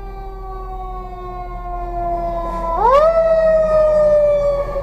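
Fire engine's siren wailing: its pitch falls slowly, rises sharply about three seconds in, then starts falling again, loudest after the rise as the engine approaches.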